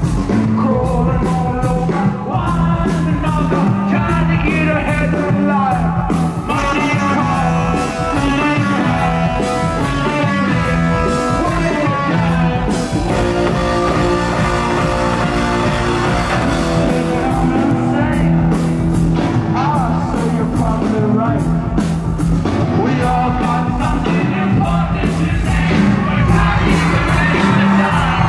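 Rock band playing with singing.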